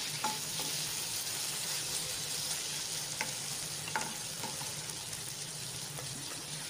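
Chopped ridge gourd and masala sizzling steadily in oil in a kadhai, at the stage where the oil has begun to separate from the masala. A few sharp clicks of the spatula against the pan.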